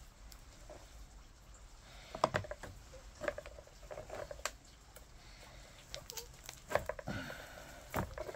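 Irregular soft taps and clicks of hands working a skinned grey squirrel carcass on a plastic cutting board as the skin is pulled off, with a knife laid down on the board.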